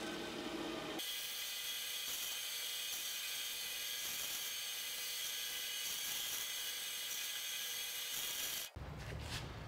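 Vertical metal-cutting bandsaw running, its blade cutting through a small piece of rusty steel: a steady high whir and hiss. The sound changes abruptly about a second in and cuts off suddenly near the end, giving way to a low rumble.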